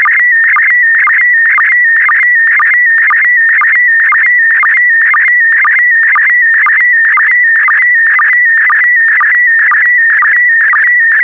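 Slow-scan television (SSTV) signal in PD120 mode sending an image: a loud, continuous high warbling tone whose pitch wavers with the picture brightness, broken by short lower sync pips at a steady, even rhythm.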